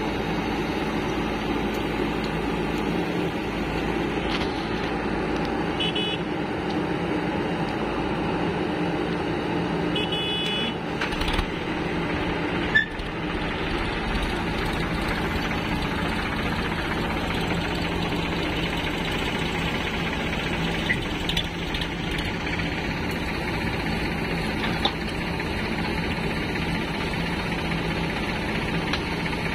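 Diesel engines of a JCB 3DX backhoe loader and a Sonalika DI 50 tractor running steadily while the backhoe loads soil. Short high beeps come twice, about six and ten seconds in, and there is a sharp knock about halfway through.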